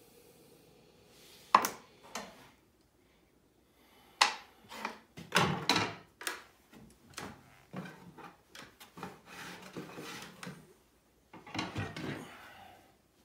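Light knocks and clicks of hand tools being handled on a wooden board, several in quick succession, then a stretch of softer rubbing and a last cluster of knocks near the end.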